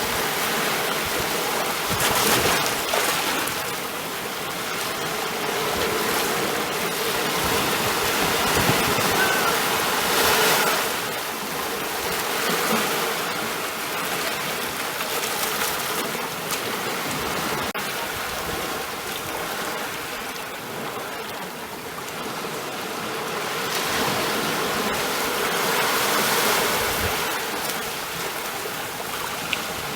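Ocean waves washing in as a continuous rush of surf, swelling and easing in slow surges a few times.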